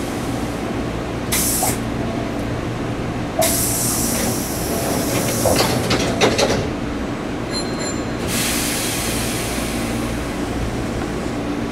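Hankyu Kobe Line electric train running, heard from inside the leading car: a steady low hum with spells of hiss, and a few sharp clicks of the wheels over rail joints about halfway through.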